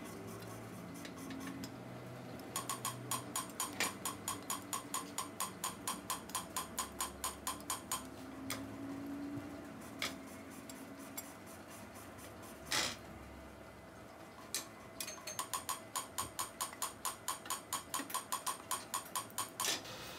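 Rapid, even metallic clicking, about four clicks a second, in two runs of several seconds each, from a hand tool working on a bare cylinder head. Between the runs come a couple of single sharp knocks, the loudest a little before the second run.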